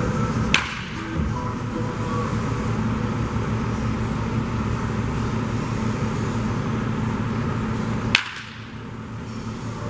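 Two sharp cracks of a baseball bat hitting a tossed ball, one about half a second in and one about eight seconds in, over background music that falls away after the second hit.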